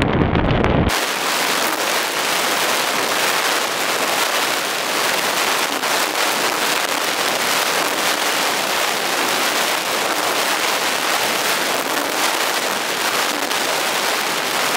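Wind noise on a hang glider's camera microphone in flight, heard through a fast-forwarded stretch: a dense, crackling hiss with almost no low end that cuts in abruptly about a second in and stays steady.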